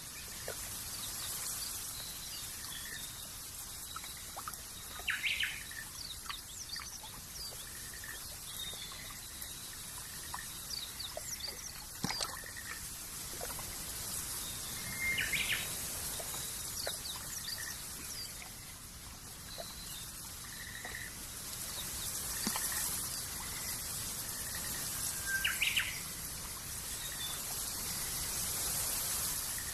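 Small birds chirping now and then, with three short louder bursts of calls about ten seconds apart, over a steady hiss of trickling water.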